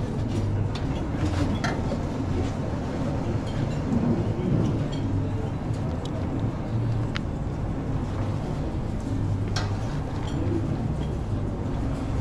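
Restaurant kitchen background noise: a steady low rumble with a few sharp clinks and clicks.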